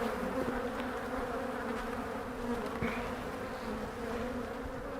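Many honey bees buzzing around an open hive in a steady, even hum. The colony is one the beekeeper calls aggressive, with bees striking him as he works it.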